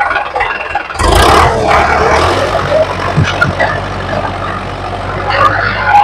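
A vehicle engine running, growing much louder about a second in and then holding steady.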